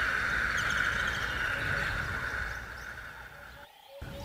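Natural forest ambience: small birds chirping over a steady hiss that fades away, with a low rumble underneath. All sound drops out briefly near the end.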